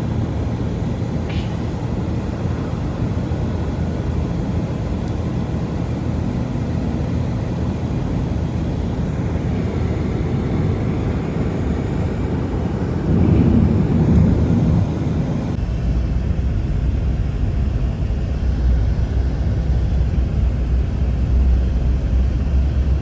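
Strong blizzard wind rushing in a steady, deep rumble that swells for a couple of seconds past the middle. About two-thirds of the way in it changes abruptly to a lower, duller rumble with the hiss gone.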